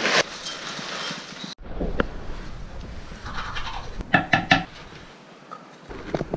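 Cornflakes poured from the packet into a ceramic bowl with a crisp rattle that stops suddenly about one and a half seconds in. Then teeth are brushed over a sink, with scrubbing, a sharp click and a few short gurgling sounds.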